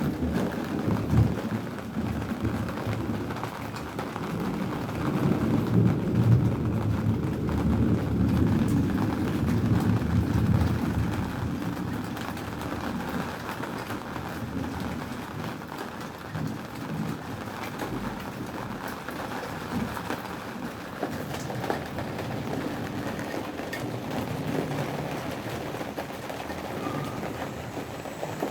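Steady rain falling, with a long low rumble of thunder through roughly the first ten seconds that then dies down, leaving the rain.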